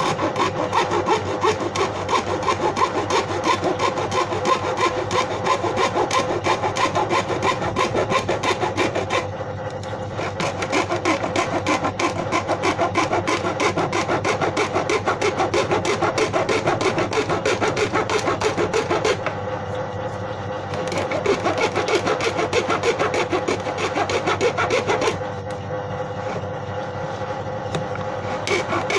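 A hand saw cutting through a plastic paint bucket in steady back-and-forth strokes, easing off briefly a few times along the way.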